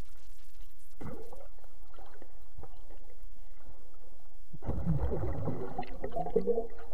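Muffled underwater sound of lake water heard from a submerged camera: a steady low rumble with faint ticks, then from about four and a half seconds in a loud swirl of bubbling and churning water as a swimmer moves close past it.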